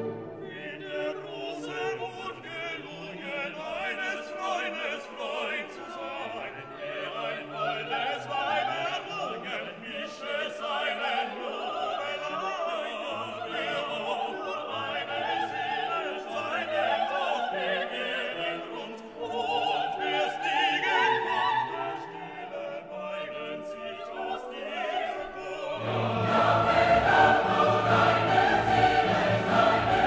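Background music: classical operatic choral singing with orchestra. It swells louder and fuller near the end.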